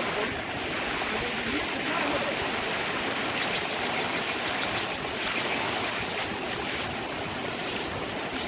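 Creek water and waterfall rushing: a steady, even rush of water.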